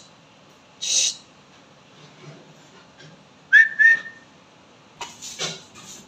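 Indian ringneck parakeet calling: a short raspy squawk about a second in, then two short, loud whistled notes at the same pitch around the middle, and a few quick rough calls near the end.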